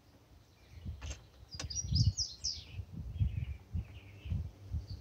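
Small birds chirping a few short calls about two and three seconds in, over an uneven low rumble.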